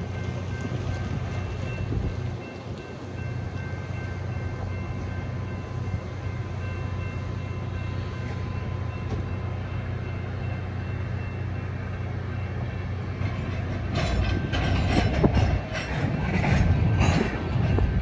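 Union Pacific Big Boy 4014's steam train moving on the line: a steady low rumble, then about fourteen seconds in, a run of louder, uneven strokes.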